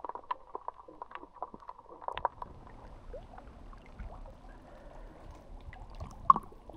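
Underwater sound picked up by an action camera in shallow water among mangrove roots: scattered sharp clicks and crackles over a low, muffled rumble, with one louder click near the end.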